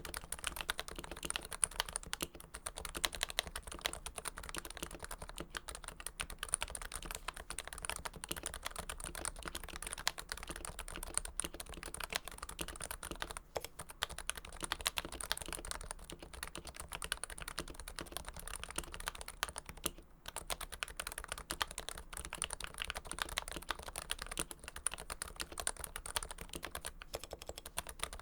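Continuous typing on a Topre-switch keyboard, a Realforce with a Hipro plate and switches lubed with Krytox 105. Keystrokes come rapidly with a couple of brief pauses.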